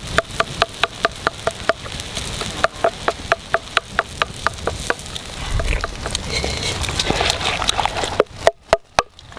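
Pestle knocking in a mortar: quick rhythmic knocks, about four to five a second, for the first half. After that comes a rougher hiss with a low rumble, and a few sharp, louder pounding knocks near the end as chillies are crushed.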